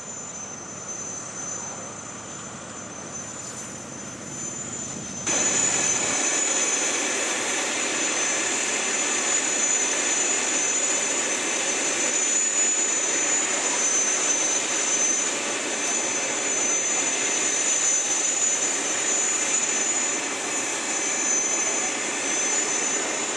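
Airbus A380's Rolls-Royce Trent 900 jet engines running at low thrust as it taxis: a steady rush with a high whine, suddenly louder about five seconds in.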